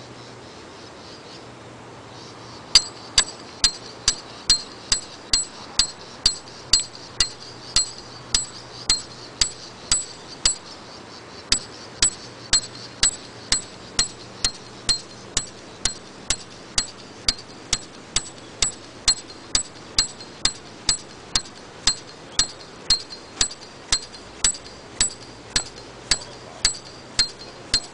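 Peg hammer striking a Snow Peak Solid Stake 60 forged steel tent peg, driving it into hard stony ground. Steady blows at a little over two a second, each with a bright metallic ring, starting a few seconds in, with one short pause about ten seconds in.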